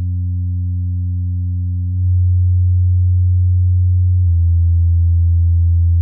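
Low bass test tone, a steady sine near 90 Hz stepping down toward 85 Hz, played in turn through Creative T40 Series II and Edifier R1700BT desktop speakers and picked up in the room. It gets louder at about two seconds and drops slightly in pitch a little after four seconds, with faint overtones above it.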